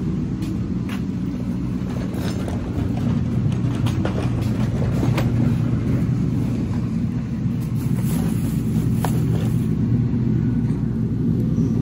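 A vehicle engine running steadily while backing into the garage, with a few light clanks and rattles. It gets louder about three seconds in and stays there.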